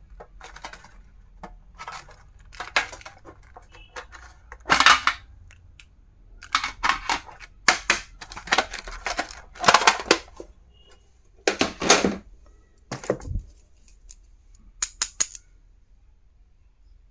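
Plastic stationery and packaging being handled and unboxed: irregular clicks, taps and short rustling or scraping sounds, with a dull thud near the end.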